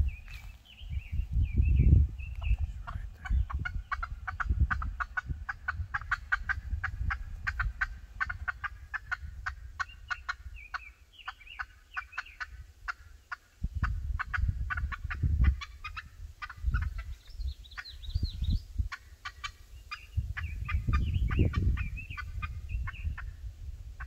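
Turkeys calling: a long run of rapid clucking notes mixed with small high peeping calls, over a low rumble that comes and goes.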